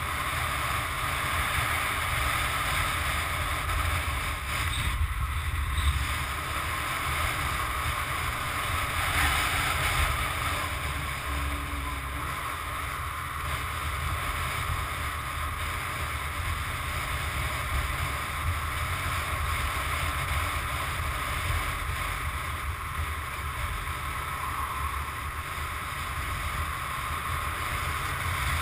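Motorcycle on the move: wind rushing over the camera's microphone, with a low rumble of the engine and road underneath, steady throughout.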